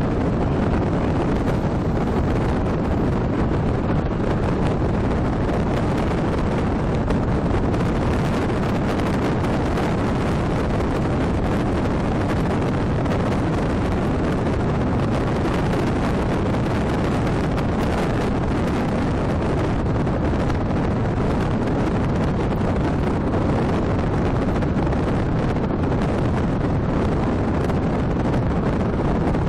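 Steady rushing wind on the microphone and road noise from a car driving along, even throughout.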